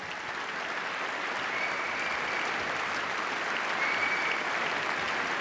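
Large audience of seated delegates applauding, swelling over the first second or so and then holding steady.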